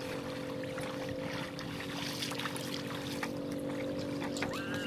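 Small waves lapping and splashing on a stony lakeshore, with scattered small clicks and splashes, over a steady low hum.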